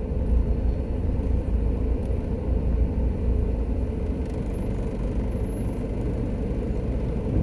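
Steady low vehicle rumble, even and unbroken.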